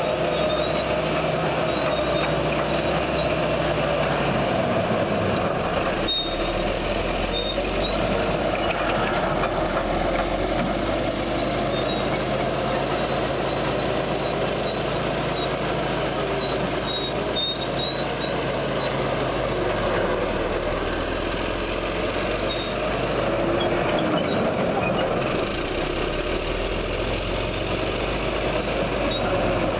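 Caterpillar D8K crawler dozer's diesel engine running hard as the machine works the dirt, its note shifting a few times as the load changes.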